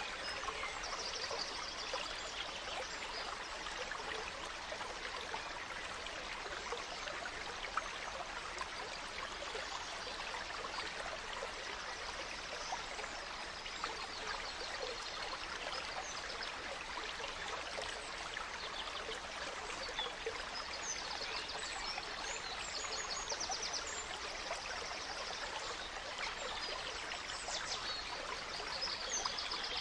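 A gentle stream running and trickling steadily, with forest birds singing brief high chirps and trills now and then, more of them near the end.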